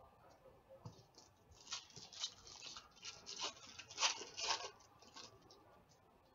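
Foil wrapper of an Upper Deck Series 1 hockey card pack crinkling as it is torn open and the cards slide out, in a run of quick crisp rustles in the middle.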